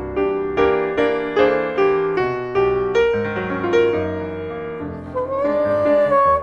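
Grand piano playing a phrase of struck notes and chords. About five seconds in, a saxophone comes in with a long held note that bends slightly in pitch.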